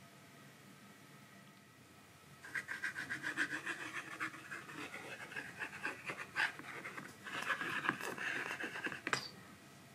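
Squeezed plastic glue bottle forcing white glue out through its nozzle onto cardboard: a rapid crackling in two spells of a few seconds each, the second ending in a sharp click.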